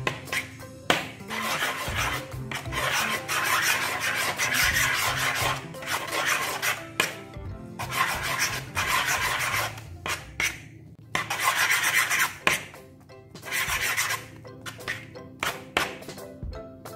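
Spoon stirring and scraping foamy dish-soap slime on a glass plate: wet, rasping strokes a second or two long with short pauses between them.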